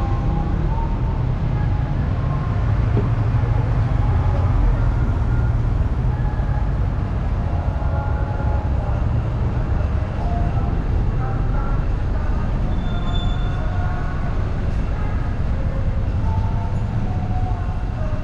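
Street traffic: motorbikes and cars running past on the road, a steady low rumble with faint voices scattered through it.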